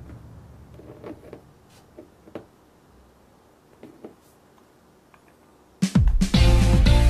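A few faint, sharp clicks and taps over a quiet background; about six seconds in, loud upbeat background music with guitar starts abruptly.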